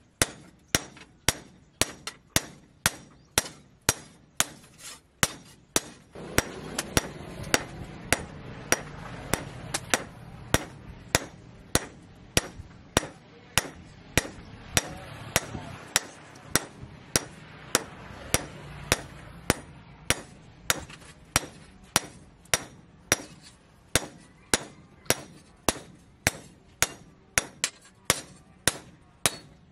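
Hand hammer forging red-hot steel on a steel anvil post: sharp, evenly paced ringing blows, about two a second.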